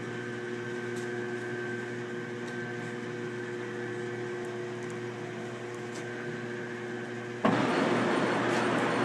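1944 Sidney 16-inch lathe running with a steady hum of its motor and gearing. About seven and a half seconds in, a much louder rough, hissing sound starts suddenly and continues as the cutting tool goes into the workpiece.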